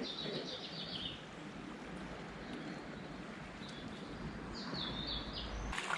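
Small bird chirping in short high runs, once at the start and again near the end, over a steady outdoor background hiss.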